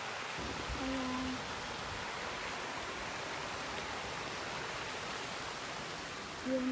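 Steady splashing of fountain jets falling into a pond.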